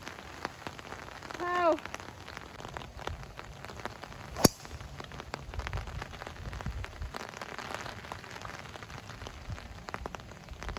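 A golf club strikes a teed-up ball once with a single sharp crack about four and a half seconds in, the loudest sound, over a steady hiss of heavy rain.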